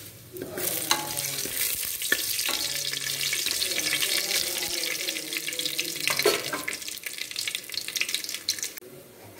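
Whole spices (cumin, cloves, cardamom, cinnamon and bay leaf) sizzling and crackling in hot ghee and oil in an aluminium pressure cooker, stirred with a spatula: the tempering stage of the dish. The sizzle starts about half a second in and drops away shortly before the end.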